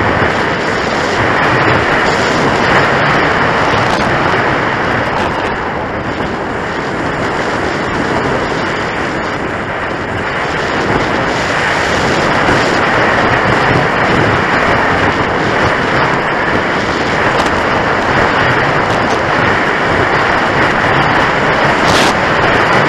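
Steady rush of airflow buffeting the onboard camera microphone of a Skyhook Discovery Mini RC soarer in flight, slowly swelling and easing, with a short click near the end.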